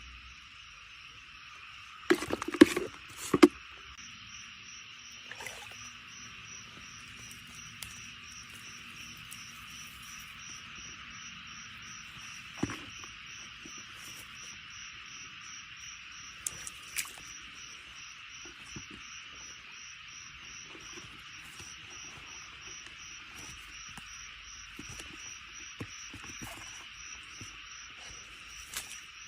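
Steady chorus of insects, with one high call pulsing about twice a second throughout. A cluster of loud sharp knocks comes about two to three and a half seconds in, and a few single clicks later.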